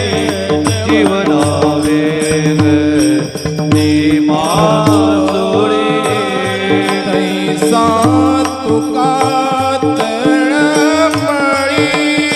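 Devotional kirtan music: a singer carries a wavering melody over a steady harmonium drone, with mridang drum strokes throughout.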